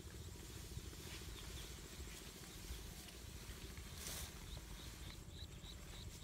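A small hoe blade digging and scraping into clay soil at a burrow hole, with one short crunch about four seconds in. From about four and a half seconds a faint high chirp repeats about three times a second.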